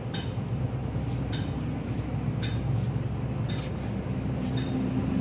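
Small metal parts clinking lightly, about eight irregular sharp ticks, over a steady low mechanical hum.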